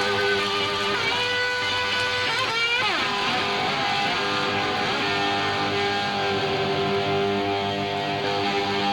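Live rock band, led by electric guitar, holding sustained notes with a string bend about three seconds in.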